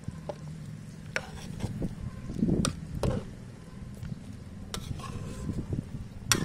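Steel ladle stirring soup in a large metal pot. It clinks sharply against the pot several times, over a steady low rumble.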